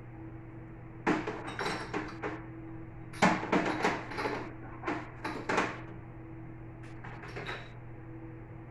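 Dishes being handled and put away, clinking and knocking against each other and the cupboard shelves in four short bursts, the sharpest about three seconds in. A steady low hum runs underneath.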